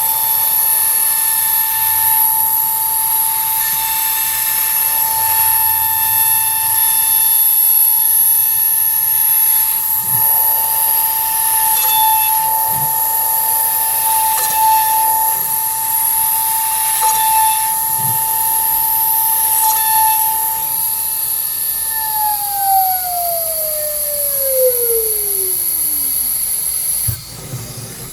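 CNC router spindle running at a steady high-pitched whine over a hiss while machining 12 mm acrylic. Later the spindle is switched off and its whine falls steadily in pitch as it spins down, and the sound drops away with a few clicks at the end.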